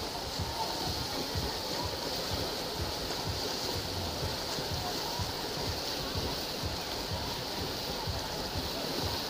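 Poolside race ambience: a steady wash of water splashing from swimmers doing butterfly, with a murmur of spectators and irregular low rumbles of wind on the microphone.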